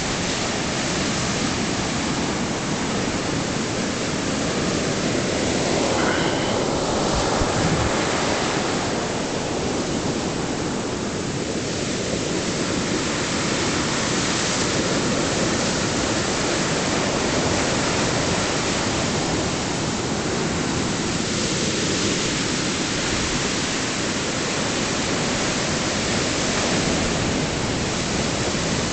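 Sea surf breaking and washing up a sandy beach among rocks: a loud, steady rush that swells each time a wave breaks, every several seconds.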